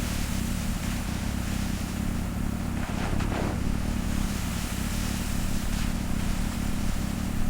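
Heavy vehicle engine running steadily: a low, even drone.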